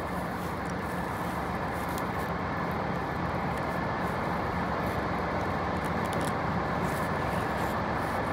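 Steady rumble of road traffic and vehicle noise with a low hum, growing slightly louder.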